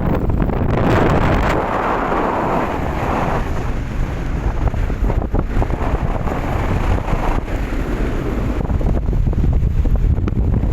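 Wind buffeting the microphone on a ship's deck at sea, a steady low rumble with gusts that swell and fade, over the noise of the sea and the ship.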